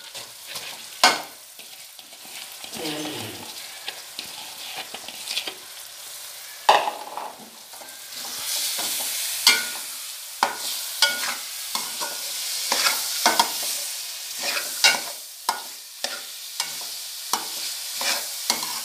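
Split urad dal tipped into hot oil and masala in an aluminium karahi, then stirred and fried with a metal spatula. The spatula knocks and scrapes against the pan again and again, over a sizzle that grows louder about halfway through as the dal starts to fry.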